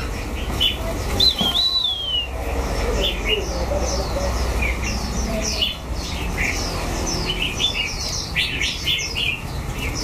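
Many caged songbirds chirping and calling together in short, overlapping chirps, with one clear whistled note about a second in that rises briefly and then slides down.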